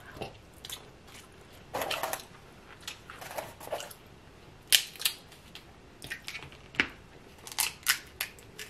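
Close-up mukbang eating sounds: a person chewing and smacking on snow crab and seafood boil in sauce. The sounds come in short, irregular bursts, with a sharp click about five seconds in.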